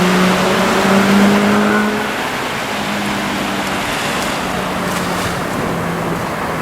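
A motor engine droning steadily, its pitch shifting slightly, loudest in the first two seconds and then fainter, over the steady wash of surf.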